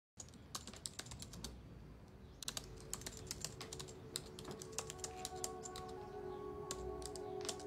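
Typing on a laptop keyboard: quick, irregular keystroke clicks in short runs. Soft music notes come in underneath a couple of seconds in.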